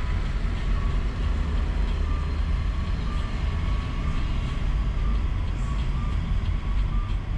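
Car driving along a town street, heard from inside the cabin: a steady low engine and road rumble. A thin tune of stepped tones, music from outside, plays faintly over it.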